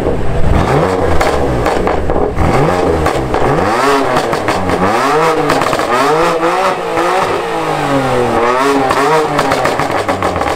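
BMW F80 M3's twin-turbo inline-six revved in a quick series of blips, the note rising and falling with each one, through VRSF downpipes and a non-resonated AWE Switchback exhaust with its valves open.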